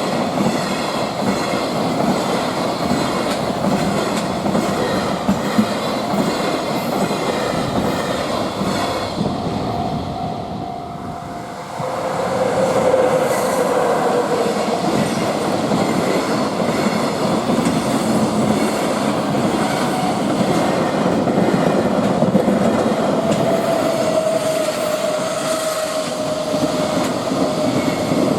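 Freight train rolling past at close range: a continuous rumble of wagons, with wheel-on-rail clatter and a faint steady squeal of the wheels. The sound eases off around ten seconds in, then comes back abruptly at full strength at twelve seconds.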